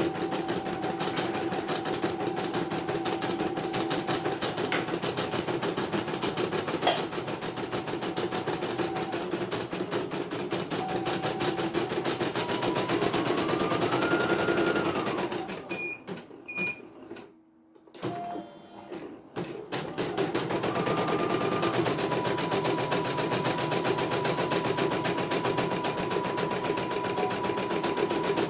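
CNY computerized embroidery machine stitching, its needle mechanism making a fast, steady rattle over a motor whine. About halfway through the motor winds up in pitch and stops, two short beeps sound, and after a few seconds it starts up again and carries on stitching.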